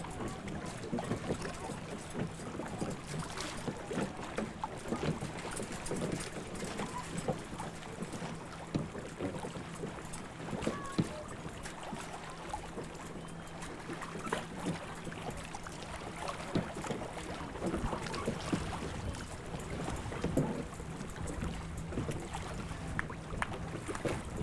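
Choppy lake water lapping and splashing in the wind: a steady rushing noise full of small irregular knocks and splashes. A faint steady low hum underneath stops near the end.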